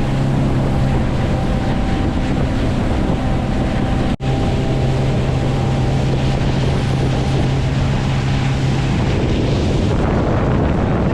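Small fishing skiff's outboard motor running steadily under way, with wind buffeting the microphone and water noise. The sound drops out for an instant about four seconds in, and near the end the motor's steady tone fades, leaving mostly wind and water.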